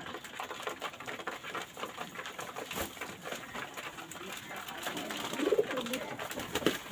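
Domestic pigeons cooing: a low warbling coo about five seconds in and a shorter one near the end, over constant light clicking and rustling.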